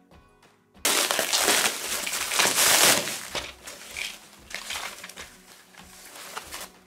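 Thin white foam packing sheet being pulled open and crumpled by hand. A loud rustling starts about a second in, is loudest for the next two seconds, then fades to softer crinkling.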